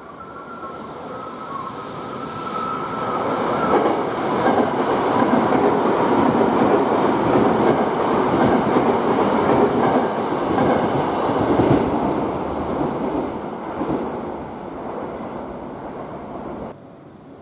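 Electric commuter train moving along the station platform: the rail noise builds over about four seconds, stays loud for about eight, then fades and cuts off suddenly near the end. A faint high steady tone is heard in the first few seconds.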